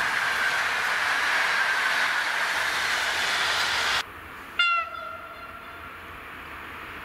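Passenger coaches of a passing intercity train rolling by close, a steady rush of wheels on rail. About four seconds in this cuts off suddenly to a quieter scene, where a short, loud horn blast sounds and a fainter horn tone lingers for a couple of seconds, from an approaching ET22 electric freight locomotive.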